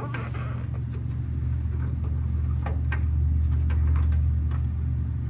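A steady low mechanical hum, with a few short faint clicks of metal partway through.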